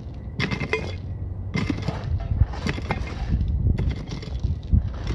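Hand tools digging into railroad track ballast beside a tie, loosening it for pulling: a scrape and rattle of crushed stone about once a second, with stones clinking.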